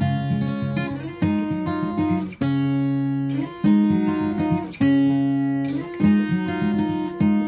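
Acoustic guitar music: strummed chords, a new chord struck about every second, with picked notes between them.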